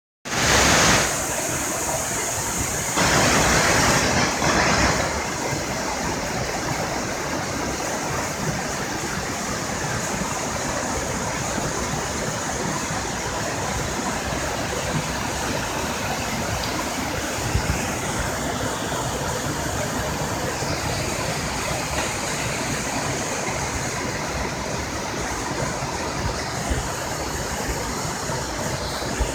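Waterfall: a steady rush of falling water, louder for a few seconds near the start.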